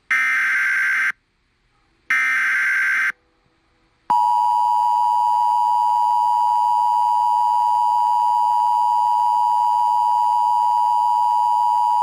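NOAA Weather Radio emergency alert: the last two of three one-second SAME digital header bursts, harsh data screeches about a second apart. About four seconds in, the steady single-pitch 1050 Hz warning alarm tone starts and holds for about eight seconds, signalling a warning (here a flash flood warning) about to be read.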